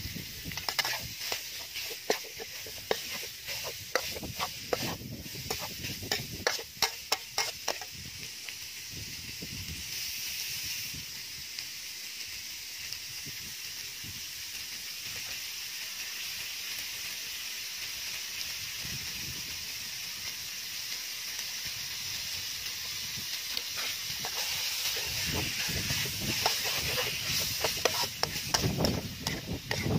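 Beef chunks and spice paste sizzling in a hot metal wok, stirred with a metal spatula that scrapes and clicks against the pan. The spatula clicks come thick during the first eight seconds and again near the end, with a steady sizzle between.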